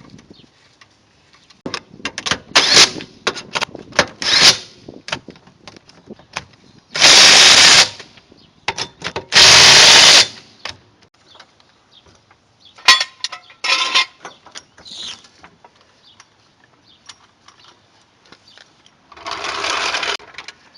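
A handheld power tool runs in loud bursts of about a second, twice in the middle and once more, quieter, near the end, driving the wheel's lug nuts back on. Sharp metal knocks and clanks come in between as the wheel is fitted.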